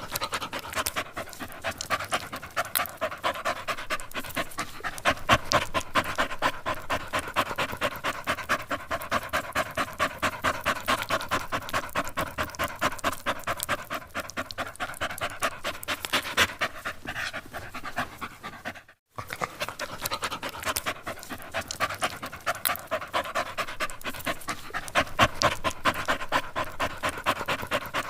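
A dog panting rapidly and steadily, several quick in-and-out breaths a second. It drops out for a moment about two-thirds through, then carries on.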